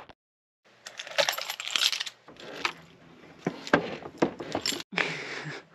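A ring of metal keys jangling and clinking as it is handled, with a string of quick sharp clicks.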